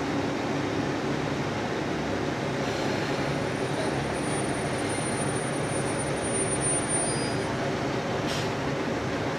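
KiHa 85 diesel multiple unit pulling slowly into the platform and coming to a stop, its diesel engines giving a steady, even running noise. A faint high-pitched whine sounds from about three to eight seconds in.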